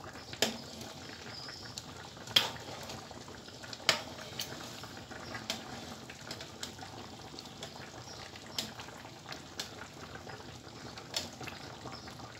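Ekmek tatlısı simmering in sugar syrup in a wide metal tray, a steady bubbling. A metal spoon clinks sharply against the tray now and then, a dozen or so times, as syrup is spooned over the bread.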